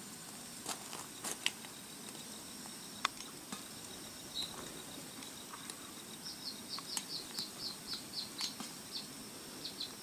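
Steady high-pitched insect trilling, with a few sharp clicks in the first seconds and a quick run of high chirps, about five a second, from about six to nine seconds in, from the great-tailed grackles foraging on the gravel.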